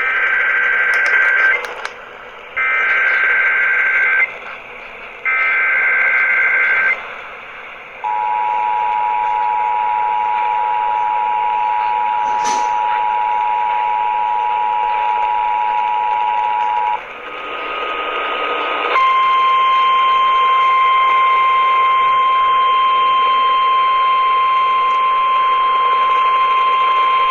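Emergency Alert System activation over the radio: three short screeching bursts of SAME digital header data about a second apart, which carry the alert's event and area codes. Then the two-tone EAS attention signal for about nine seconds, a brief burst of noise, and a single steady weather-radio alert tone.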